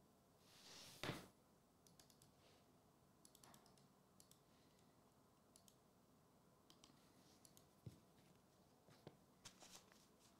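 Near silence, with a brief soft rustle about a second in and a few faint clicks and taps from trading-card packs and a sleeved card being handled.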